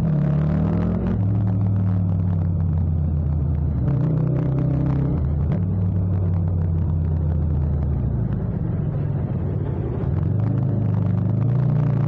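Yamaha MT-07's parallel-twin engine under way. The note drops as the throttle closes at the start, holds low and steady through the middle with a brief rise about four seconds in, then climbs again as it accelerates in the last two seconds.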